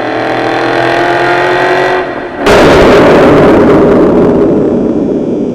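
Ford Mustang GT's 5.0-litre V8 through a Borla ATAK exhaust: a steady exhaust note rising slowly in pitch, then about two and a half seconds in it turns suddenly much louder and rougher as the engine is pushed harder.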